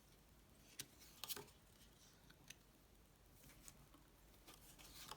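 Near silence in a small room, with a few faint, brief clicks about a second in and again near the end.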